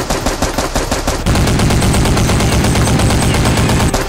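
Rapid automatic gunfire, many shots a second without a break: a machine-gun sound effect laid over a Nerf-blaster firefight.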